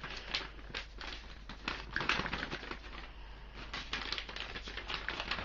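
Paper rustling and crinkling as paperwork is pulled out of a package by hand: a run of irregular soft clicks, crackles and scrapes.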